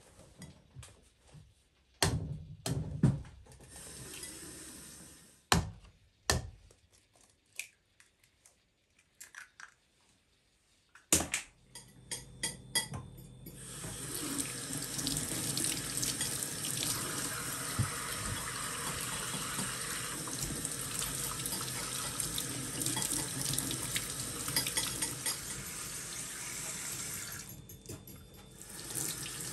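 A run of light knocks and clatter, then a kitchen tap running steadily into a stainless-steel sink as bananas and other fruit are rinsed under it; the water stops shortly before the end.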